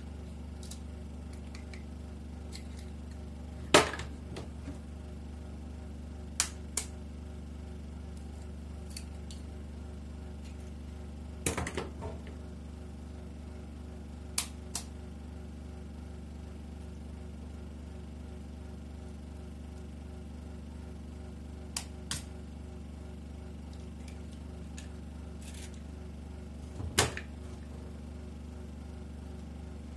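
Knife blade tapping eggshells to crack eggs open: short sharp taps every few seconds, some in quick pairs, over a steady low hum.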